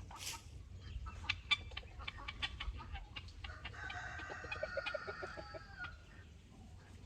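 A rooster crowing once, a single held call lasting about two and a half seconds in the middle, with a few short sharp clicks before it.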